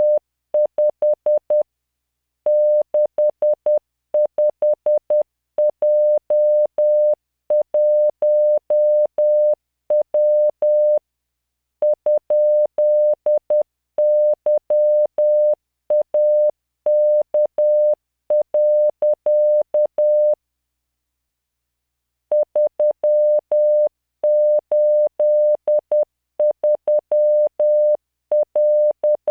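Morse code sent as a computer-generated 600 Hz tone at 10 words per minute, in dots and dashes keyed on and off. It spells random five-character groups of letters, figures and punctuation, with a short space between groups and one longer pause of about two seconds two-thirds of the way through.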